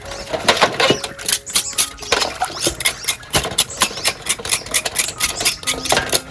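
Quick, irregular series of sharp knife strokes against a cutting board, several a second, as food is cut up.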